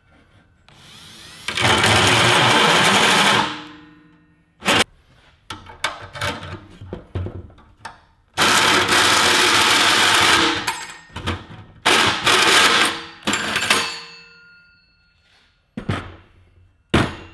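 Cordless drill running a hole saw through a thin aluminum radiator shroud in several loud runs of one to three seconds, with sharp clicks and knocks in between.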